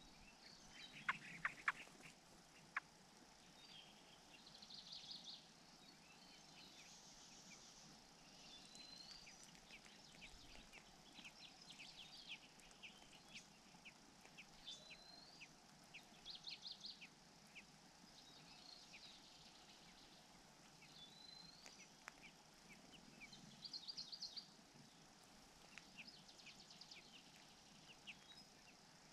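Faint bird calls: short high chirps, rising notes and quick trills repeating every second or two, with a few sharp clicks between one and three seconds in.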